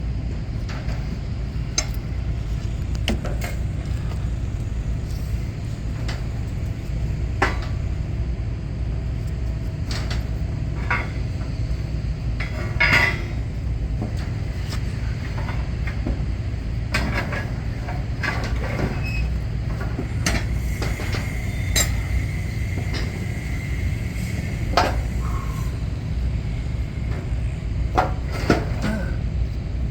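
Steady low mechanical rumble with scattered metallic clinks and knocks of tools and parts being handled.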